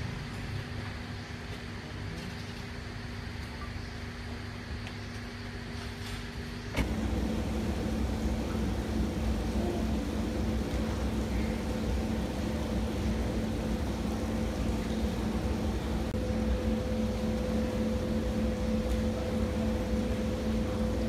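Steady mechanical hum with a constant low drone. It becomes louder and fuller about seven seconds in, and a second, higher steady tone joins later.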